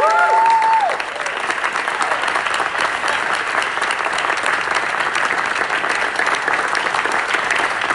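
Final held chord of a euphonium and tuba ensemble, cut off just under a second in, followed by steady audience applause.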